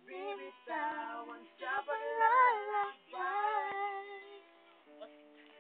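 A woman singing a slow melody with held, wavering notes over a soft music backing; near the end the voice stops and only the steady backing tones carry on.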